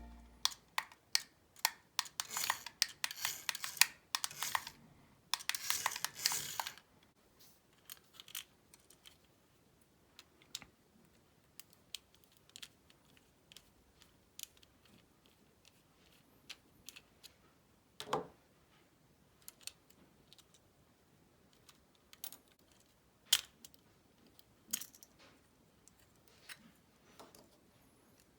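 Hands handling small plastic parts and packaging: a few seconds of rustling, then scattered light clicks and taps.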